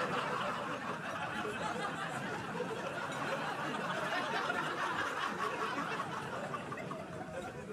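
Audience laughing, a dense crowd laugh that slowly dies down near the end.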